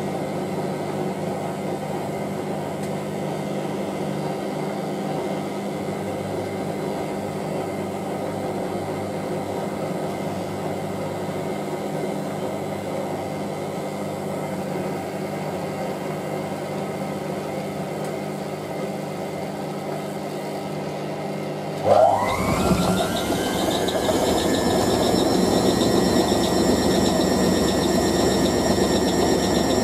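Hotpoint 9530W Electronic 1000 Plus front-loading washing machine running with a steady hum as the drum turns the towels in rinse water. About 22 seconds in, the motor kicks in abruptly and ramps up in a rising whine, settling into a higher, louder whine as the drum goes into a spin.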